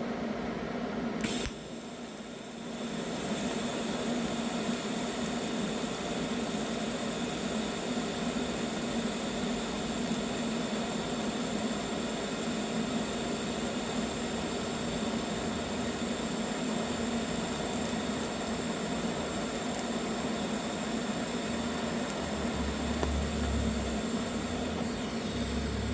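TIG welding arc from an Eastwood TIG 200 welder. The arc strikes with a sharp crack about a second in, then runs as a steady buzzing hiss while a bead is laid, the current turned up a little so the metal heats faster.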